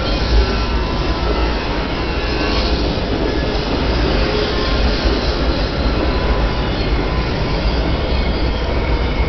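Timber Mountain Log Ride log flume in motion, heard from a seat in the log: a steady, loud rumbling noise with a deep low rumble underneath.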